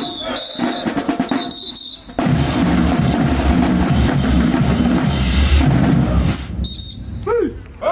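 Marching band drumline playing: sharp drum hits with a high steady tone over them, then from about two seconds in a loud, sustained roll of bass and snare drums that dies away near the end.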